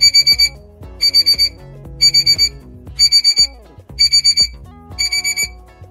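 Digital alarm-clock beeping used as a quiz timer: a burst of about five quick, high beeps once every second, over light background music with a bass line.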